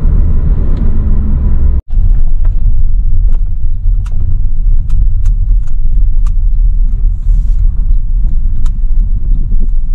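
Low, steady road rumble inside a moving car's cabin, broken by a brief dropout about two seconds in, with light scattered clicks after it.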